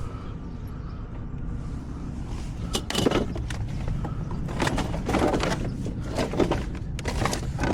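Equipment, likely chainsaws, being shifted and handled, giving irregular clunks and rattles over a steady low hum.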